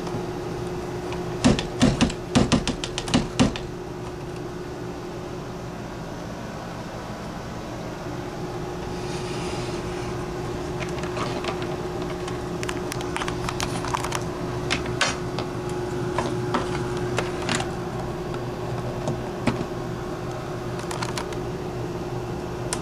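Clicks and clunks of a cassette radio-recorder being handled and its controls worked: a quick cluster of knocks a couple of seconds in, then scattered single clicks, over a steady low hum.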